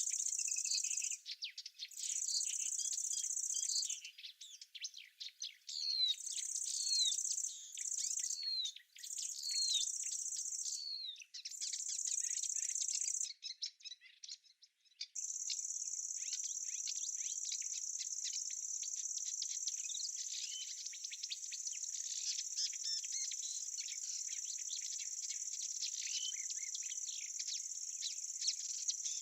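A high, steady insect trill of a summer meadow that stops and restarts several times in the first half, then runs on unbroken, with small birds chirping over it in quick falling notes.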